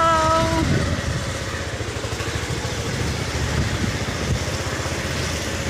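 A two-wheeler engine runs close by with a steady low rumble amid street noise, after a short voiced call right at the start.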